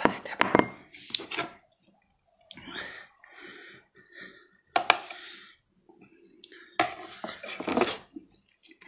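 Close-up eating and table sounds: a glass knocked onto the table near the start, a small knife clicking and cutting on a wooden board in the middle, and chewing near the end, in short sharp bursts with gaps between.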